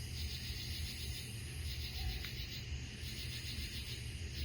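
Night insects singing in a pulsing chorus, which the speaker takes for cicadas: trains of fast rasping pulses about a second long, repeating with short gaps, over a steady low rumble.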